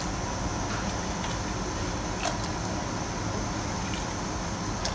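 Steady low hum and hiss of kitchen background noise, with a few faint clicks.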